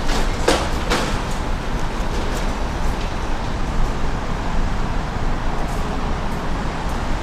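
Steady low rumbling background noise, with a few short knocks about half a second and a second in.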